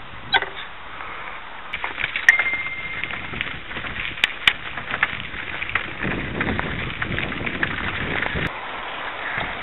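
Bicycle tyres rolling over a gravel and dry-grass trail, a constant crackle with many small clicks and rattles from the bike. A short high steady tone sounds about two seconds in, and a low rumble comes in for a couple of seconds past the middle.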